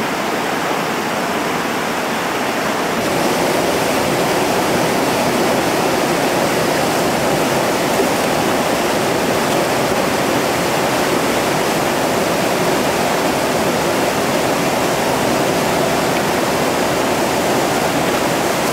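Whitewater rapid rushing steadily as the river pours over a boulder ledge drop, a little louder from about three seconds in.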